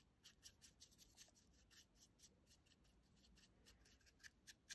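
Faint scratchy strokes of a nearly dry paintbrush being streaked up and down over a small plastic model billboard, a few strokes a second.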